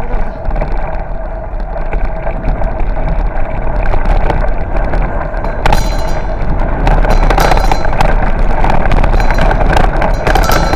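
A bicycle riding fast over a rough dirt track, with wind rumbling on the microphone and the bike rattling and clattering over the bumps. It grows louder after a few seconds, and the clattering gets thicker about halfway through.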